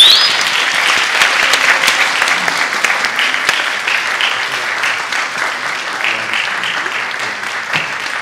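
Audience applauding steadily in a hall after a song ends, the clapping slowly easing off.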